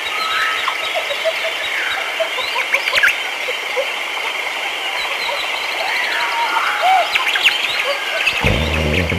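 Birds chirping and calling, many short chirps and gliding notes, over a steady high-pitched background chorus. Near the end, music with a low drum comes in.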